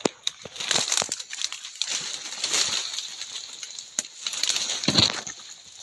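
Footsteps crunching and rustling through leaf litter and brush in an irregular series, loudest about five seconds in, over a steady high-pitched insect chorus.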